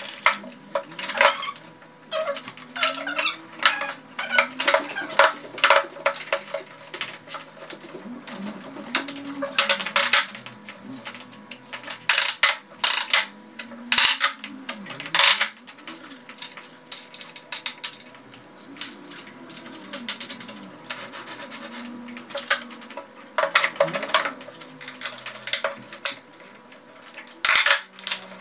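Wooden parts and hardware of a homemade pine folding table knocking and clicking, over and over at an irregular pace, as it is handled, folded and put together.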